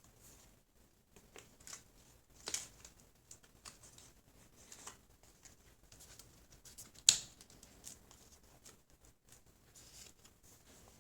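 Small handling noises from laptop repair work: scattered light clicks and scrapes of small tools and parts, with a sharper click about seven seconds in.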